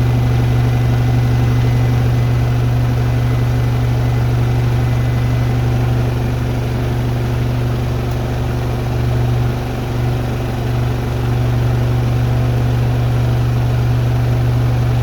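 Washing machines, a Hoover Nextra Iconic and a Beko WDER washer-dryer, on a 1400 rpm final spin: a loud, steady, low hum of the drums spinning at speed, dipping briefly about two-thirds of the way through.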